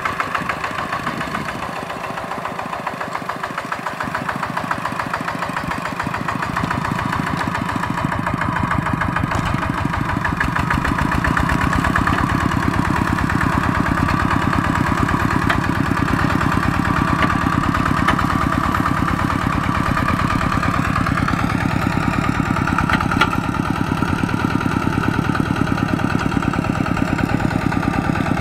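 Single-cylinder diesel engine of a two-wheel walking tractor running steadily with a rapid, even chugging beat, getting somewhat louder over the first several seconds.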